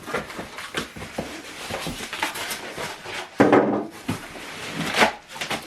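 Cardboard packaging being handled and rustled, with scattered clicks and scrapes, a heavy thud about three and a half seconds in and a sharp knock about a second later.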